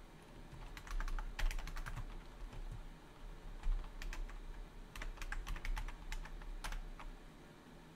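Keystrokes on a computer keyboard in two quick runs, one about a second in and another from about four to nearly seven seconds in, typing out an ssh command. A faint low hum runs underneath.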